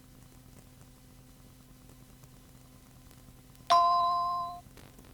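Faint steady hum, then about three-quarters of the way in a single bright chime rings for just under a second and fades. It is the cueing chime that marks the start of the next pre-recorded answering-machine announcement: the signal to start recording.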